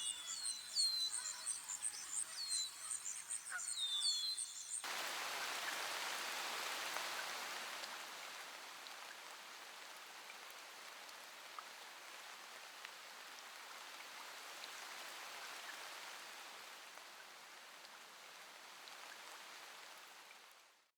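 Small birds chirping and twittering for about five seconds, then a sudden switch to a steady rushing hiss that slowly fades and cuts off at the end.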